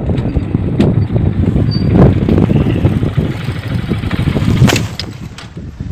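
Wind buffeting the microphone: a loud, uneven low rumble with a few brief knocks, easing off near the end.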